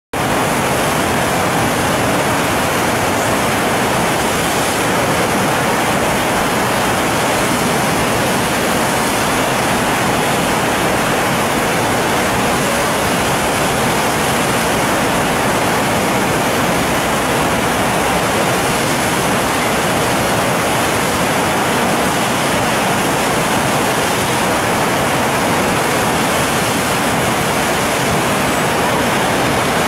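Whitewater rushing over a standing river wave: a steady, loud rush of churning water that does not let up.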